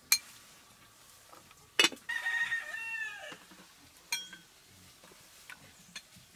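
A rooster crows once, a pitched call of a little over a second that falls away at the end. Around it come a few sharp clinks of a spoon and china bowls, one just before the crow and one after it.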